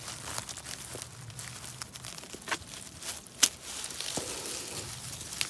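Rustling and crinkling of someone moving through undergrowth on foot, with a few sharp snaps scattered through it.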